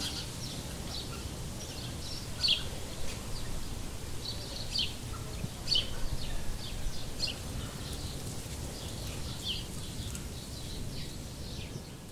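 Wild songbirds chirping and calling in short high notes, scattered irregularly, some sweeping downward, over a steady low outdoor rumble.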